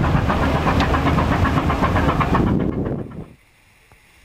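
A ship's engine running steadily as the vessel moves through the water, cutting off abruptly about three seconds in; after that only a faint low background remains.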